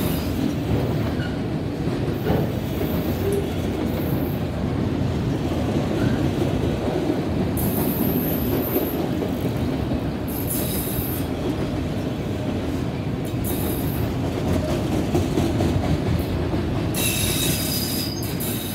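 A CSX freight train's autorack cars rolling past at close range: a steady rumble of steel wheels on the rails. Several spells of high wheel squeal come through, and the last, near the end, has a thin, ringing pitch.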